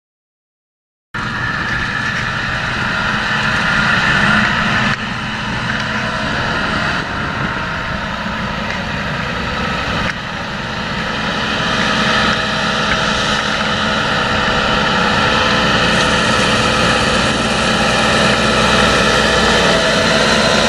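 After about a second of silence, a John Deere 7230R tractor's six-cylinder diesel runs steadily under load as it pulls a seed drill through tilled soil.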